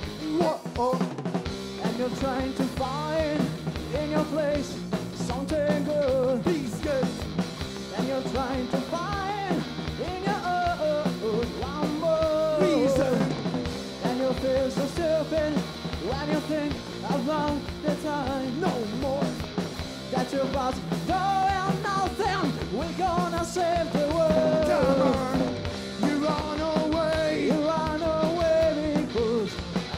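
Live rock power trio of electric guitar, bass and drums playing an original rock song, with a male lead voice singing over the band.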